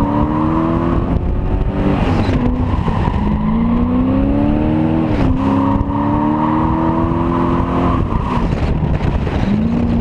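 Car engine revving hard under load while drifting, its pitch climbing and dropping several times as the throttle is worked, with tyres squealing as they spin and smoke.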